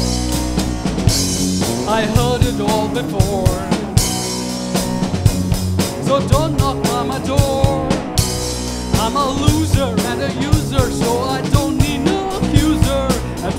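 Live rock band playing a song: a Sonor drum kit with steady cymbal and drum strikes under keyboard, and a male singer's voice coming in about two seconds in.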